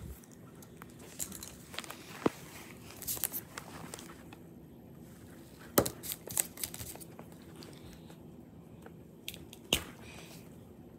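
Handling sounds around a sketchbook and art supplies: scattered sharp clicks and brief crinkling rustles, the loudest clicks about six seconds in and near the end, over a low steady hum.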